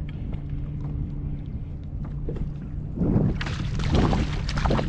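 Wind noise and water splashing against a fishing kayak, over a steady low hum. The splashing grows louder and choppier from about three seconds in.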